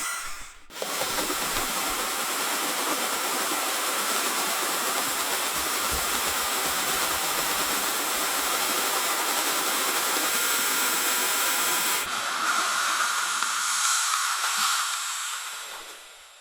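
Shower running: a steady hiss of spraying water. It dips briefly about half a second in, changes tone about twelve seconds in, and fades out near the end.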